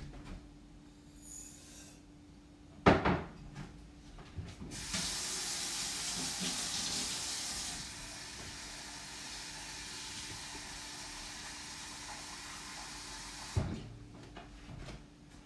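Kitchen tap running into the sink for about nine seconds, a steady hiss of water that is louder for the first few seconds and then settles lower before it is shut off. A single sharp knock comes about three seconds in, before the water starts.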